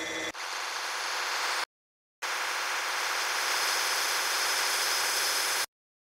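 Electric nail drill with a carbide burr grinding toenails. A brief pitched whine gives way to a gritty hiss in two stretches, about a second and then about three and a half seconds, each cutting off abruptly.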